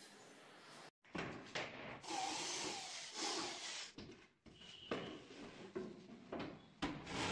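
Laminated wooden cabinet door panel being handled and offered up to a kitchen base cabinet: a run of scrapes, rubbing and several light knocks of board on the cabinet frame.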